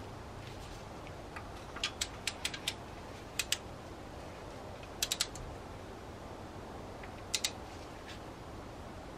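Hand socket ratchet and torque wrench clicking in short bursts of two to five clicks as a small bolt on the cylinder head is run down and torqued to 10 Nm.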